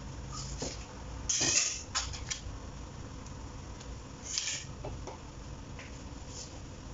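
Melted butter bubbling in a hot wok with a faint steady sizzle, broken by a few short sputtering hisses: the loudest about a second and a half in, another about four seconds in.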